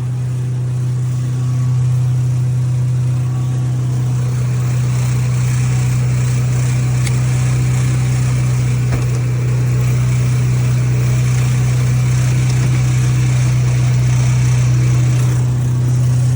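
Pressure washer running steadily with a constant low hum while water sprays from the gun's tip.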